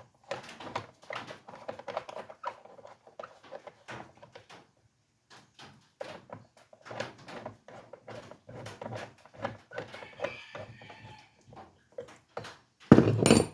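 Scattered clicks, taps and clatter of hands and tools handling a Stihl MS311 chainsaw's cover and parts during reassembly, ending in one loud knock near the end.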